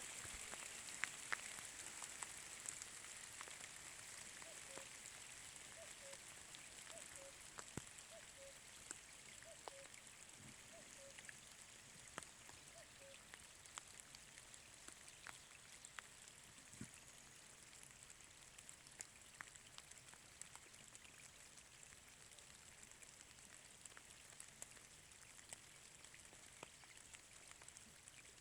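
Light rain falling: a faint steady hiss with scattered individual drops ticking. In the first half a faint short call repeats about ten times.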